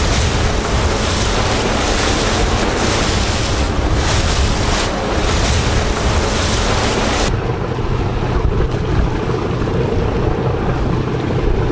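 Wind buffeting the microphone over water, with the wash of waves and a boat's low rumble. About seven seconds in, the high hiss cuts off abruptly, leaving a duller low rumble.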